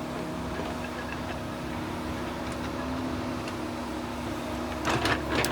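Excavator engine running steadily at a constant pitch, with two short, loud noisy bursts near the end.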